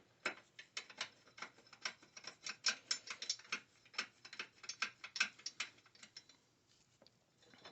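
Socket ratchet clicking in quick, uneven runs as a battery hold-down bolt is run in. The clicking stops about six seconds in.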